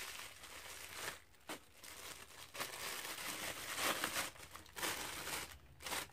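Clear plastic packaging crinkling and rustling in stops and starts as it is unwrapped from a camera lens.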